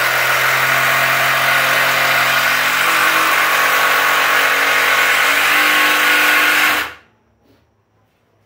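Cordless drill-driver running steadily under load in wood, driving a long screw through the crossbar into the bench leg, then stopping abruptly about seven seconds in.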